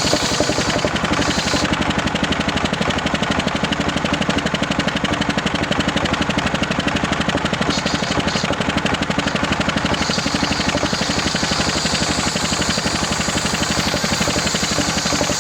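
Homemade circular saw rig running steadily with a rapid, even pulsing beat. A high hiss fades out about two seconds in and returns about ten seconds in.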